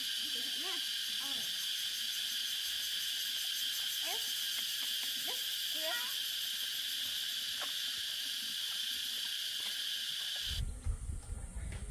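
A steady, high-pitched chorus of insects chirring, which cuts off abruptly near the end. A low rumble with a few knocks replaces it.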